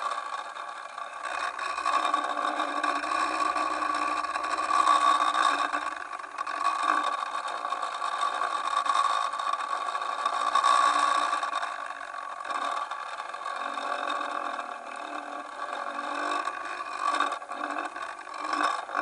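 A steady, engine-like hum with several fixed tones, rising and falling a little in loudness, as picked up by an underwater camera hanging on a fishing line at the seabed.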